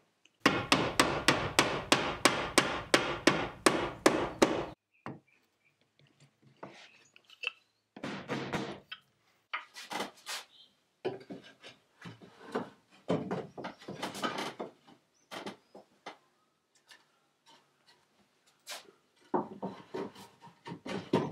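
Hammer tapping a wooden wedge to lock a wooden siding board in place, about sixteen quick strikes at roughly four a second, stopping after some four seconds. After that, wooden boards knock and scrape against each other and the timber framing in irregular clusters as they are pushed up and wedged into place.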